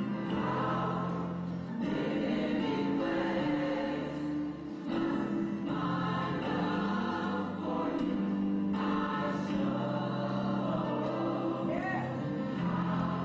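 Gospel choir music, the voices holding long sustained chords in phrases.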